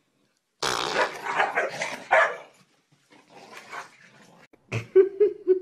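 A small dog growling and barking: a loud rough burst soon after the start, fainter growls in the middle, then a sharp knock and a pulsed low growl near the end.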